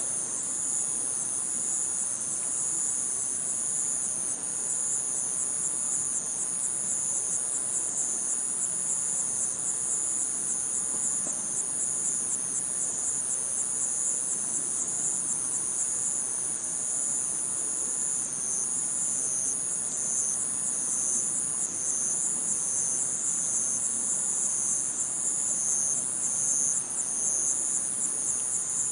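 A dense chorus of insects trilling without pause, high-pitched and rapidly pulsing.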